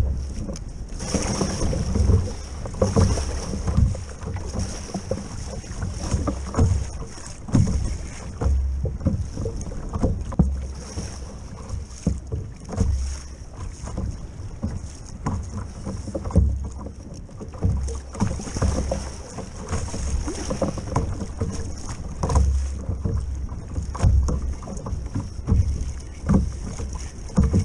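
Wind buffeting the microphone and small waves slapping and knocking against a plastic kayak's hull, in irregular low thumps and splashes over a steady hiss.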